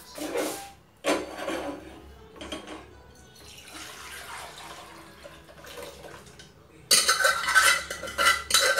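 Wet stovetop being wiped and scrubbed with a cloth, with scattered clinks of metal pots and utensils. About seven seconds in, louder, rapid scrubbing and clattering begins.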